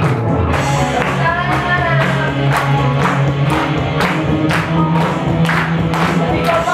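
Upbeat song with singing over a steady beat of sharp strokes about twice a second, with hands clapping along.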